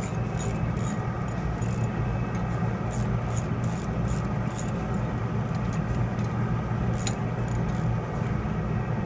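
Socket ratchet clicking as it runs nylon-insert lock nuts down the studs of a motor brake's manual release lever: an even run of about three clicks a second for the first few seconds, then a few short bursts. A steady low hum sounds underneath.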